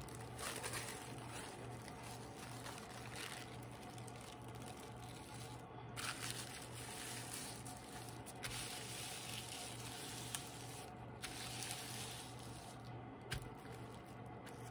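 Tissue paper rustling and crinkling in soft, irregular bursts as hands lay it over a glue-coated page and smooth it flat.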